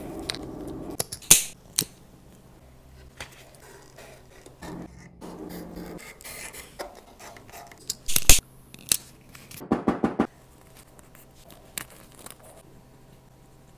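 Close-up sounds of hand-stitching leather: thread drawn through a leather strap and keeper, with rubbing and rasping as it pulls tight, and a few sharp clicks or snips, the loudest about eight seconds in.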